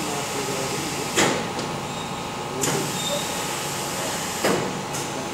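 Automatic paint-bucket filling and lid-placing machine running with a steady mechanical noise, broken three times by a short, sharp burst as its actuators move.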